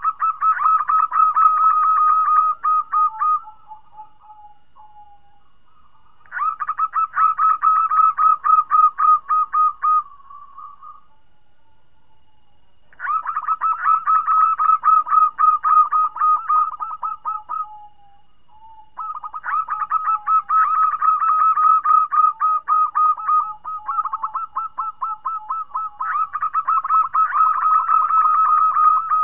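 Zebra dove (perkutut) call, presented as a female calling to a male: repeated bursts of fast, stuttering coo notes, each lasting about three to four seconds with short pauses between. A softer, lower drawn-out note trails after several bursts. It is used as a lure call to bring male doves into breeding condition.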